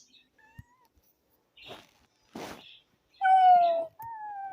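Kitten meowing near the end: one loud, slightly falling meow, then a second, longer one. Before the meows come two short noisy bursts.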